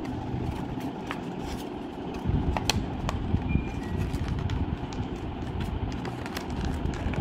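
Paper rustling and crinkling as a sheet of paper is folded and creased by hand, heard as scattered short clicks over a steady low background rumble.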